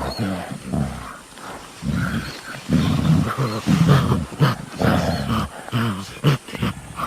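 Gorilla howling: a run of short, deep calls one after another, getting louder about three seconds in, with a few sharp clicks among them.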